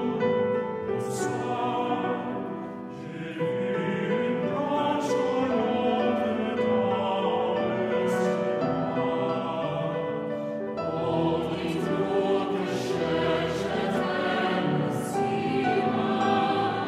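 Mixed choir of men's and women's voices singing a French song in several parts, holding long, shifting chords.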